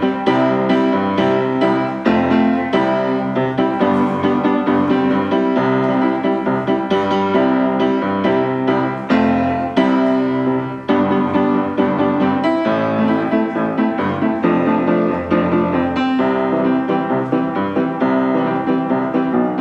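Piano music playing steadily, many notes struck in quick succession over held chords.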